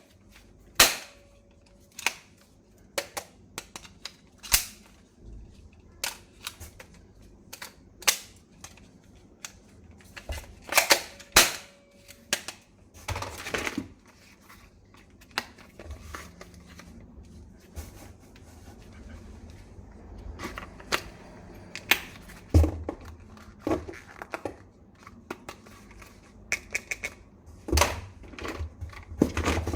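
Sharp plastic clicks and knocks at irregular intervals, one every second or so, from a replica toy gun being handled and worked, with a longer rasping sound about thirteen seconds in.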